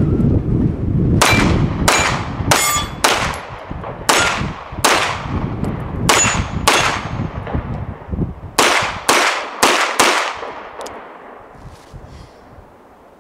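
About a dozen pistol shots from a CZ 75 SP-01 Shadow, fired in uneven strings, each crack trailing off in a ringing echo. The last four come in quick succession, each about half a second apart. Wind buffets the microphone through the first part.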